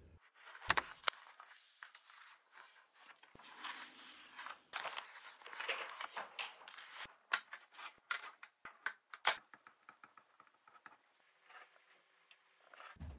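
Paper pages of a booklet being leafed through and rustling, with sharp clicks and taps of handling; two louder clicks come about a second in.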